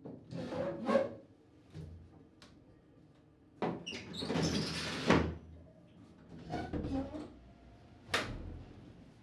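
Paper covering a window being ripped and pulled away in a series of tears. The longest lasts over a second near the middle, and a short sharp rip comes near the end.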